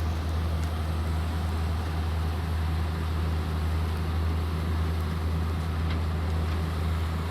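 Engine of a wheat harvester running at a steady, low, even drone.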